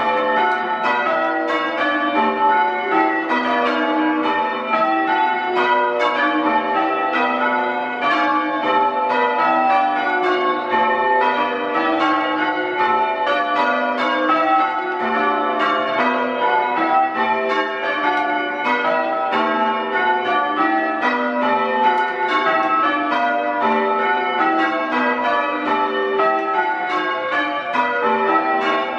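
A ring of six church bells change ringing, the bells struck one after another in a continuous, even rhythm. Very loud, as heard in the ringing room close under the bells.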